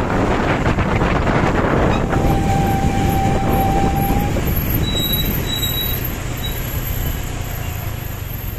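A large bus driving past close by, its engine and road noise loud at first and then slowly fading as it moves away. A thin, steady whistling tone sounds for about two seconds, starting a couple of seconds in.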